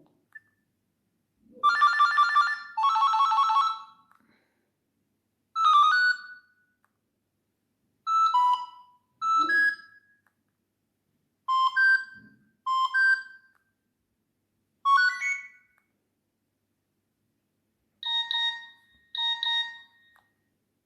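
Nokia 6600 mobile phone playing short polyphonic ringtone jingles through its speaker: a series of brief electronic chime notes, mostly in pairs, separated by silent gaps of a second or two.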